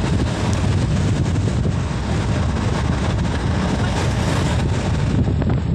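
Wind buffeting the phone's microphone on a moving open ride, a loud, steady, deep rush of noise.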